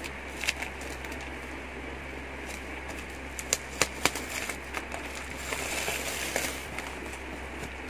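Packing tape and a cardboard box being worked open by hand: scattered sharp clicks and crackles, with a denser rustle about five to seven seconds in.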